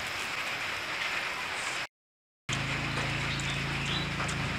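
Close-miked chewing and mouth sounds of eating grilled chicken, with faint wet clicks over a steady hiss. The sound cuts out completely for about half a second near the middle.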